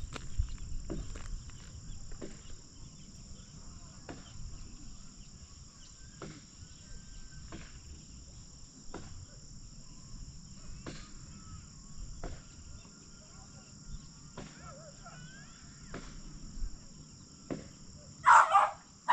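Steady high chirring of crickets and other insects, with soft footsteps knocking about once a second. A short, loud sound breaks in near the end.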